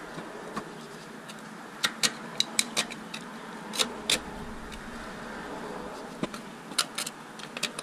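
Scattered sharp clicks and taps of a small blade poking and scraping at thick black sludge inside a Fordson Major tractor's rear transmission casing, several close together about two seconds in and again near the end, over a steady low hum.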